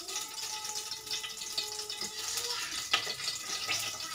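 Ghee and oil heating in a steel kadai on a gas stove, sizzling softly with many small crackles and pops.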